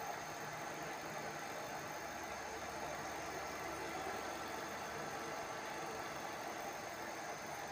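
Steady mechanical hum with a hiss, like a small motor running continuously.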